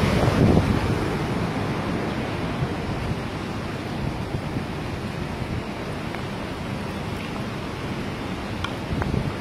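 Water discharging through a dam's open floodgates: a steady rushing noise of falling, churning water, a little louder in the first second and then even.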